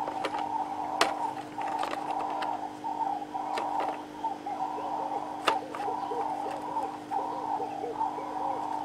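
Small plastic plant pots set down in a clear plastic container with a wire rack, giving a few sharp clicks, the strongest about a second in and halfway through. Behind them a bird coos over and over, the calls coming in a quick repeating run from about halfway through.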